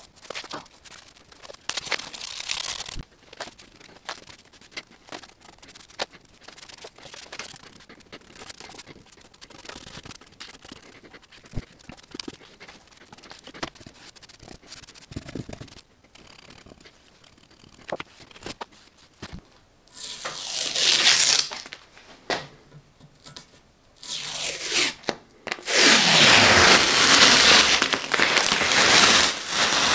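Scattered light clicks, scrapes and rustling from hands-on work, then loud hissing, scraping noise in bursts about two-thirds of the way in and steadily over the last few seconds.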